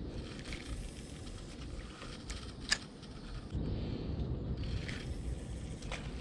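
Low, uneven rumble on the microphone, with a sharp click about two and a half seconds in and another near the end.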